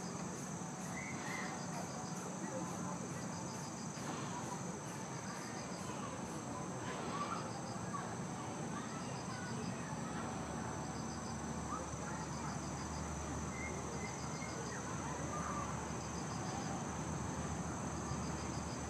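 Insects calling: a steady high-pitched drone, with a short pulsed chirp repeating every two seconds or so.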